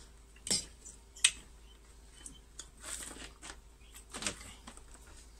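Scattered knocks, clicks and rustles of welding cables and metal clamps being handled and set down on the ground, with a few sharper knocks about half a second in, about a second in and near the end.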